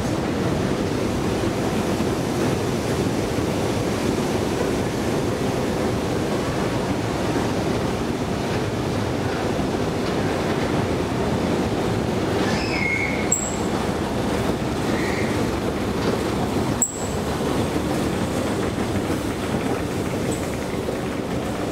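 Escalator running as it is ridden: a steady mechanical rumble of the moving steps and drive, with a few short high squeaks and a click a little past halfway.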